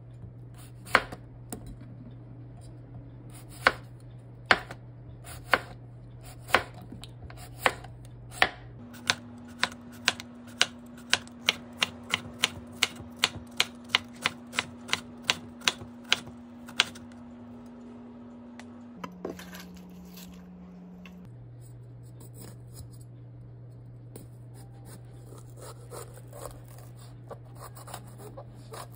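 Chef's knife cutting a cucumber on a cutting board: the blade knocks on the board about once a second, then speeds up to a quicker run of two or three chops a second for several seconds before stopping.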